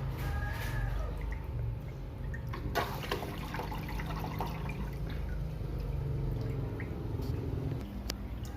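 Water pouring and splashing continuously from an aquarium waterfall fed by a pump rated at about 2,800 litres per hour, a strong fast flow, with a steady low hum underneath.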